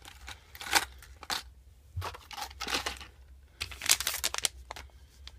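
Plastic blister packs and card-backed lure packages crinkling and clacking as they are handled and piled together, in a string of irregular short rustles.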